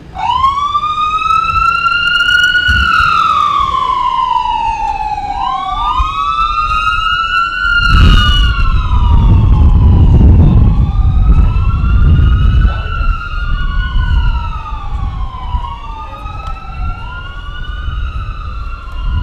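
Emergency vehicle siren in a slow wail, rising and falling about every five to six seconds. About eight seconds in, a loud low rumble joins it, and in the second half a second wail overlaps the first, out of step.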